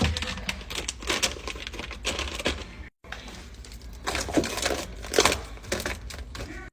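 Clicks, taps and clinks of containers and packaging being handled and set down while a fridge is restocked, with some crinkling between them and a brief total dropout about three seconds in.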